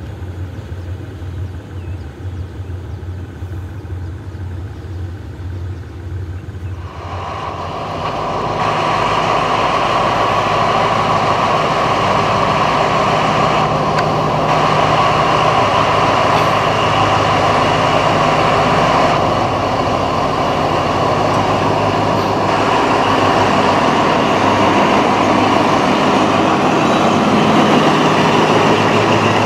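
Diesel locomotives of the Thai state railway. For the first seven seconds there is a low, steady drone from a train approaching in the distance. From about seven seconds in, a much louder, steady diesel engine runs at close range as a locomotive pulls past.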